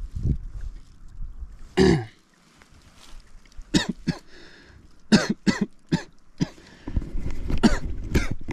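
A man clearing his throat: one longer rasp about two seconds in, then several short, sharp coughs.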